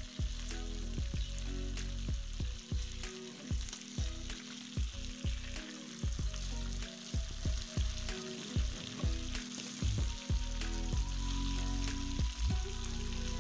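Chicken pieces sizzling as they fry in hot oil in a pan, with frequent short knocks and scrapes of a spatula against the pan as the pieces are turned over once one side has browned.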